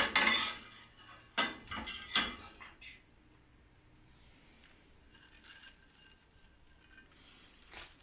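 A metal spatula scraping and clinking against a ceramic plate, in a few short bursts with a sharp knock at the start.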